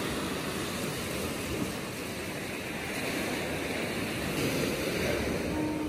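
Small waves breaking and washing up a sandy beach, swelling a little louder about four and a half seconds in.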